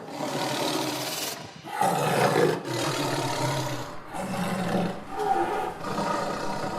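A large animal's deep, rough growling roars, several in a row with short breaks between them, each lasting about a second or so.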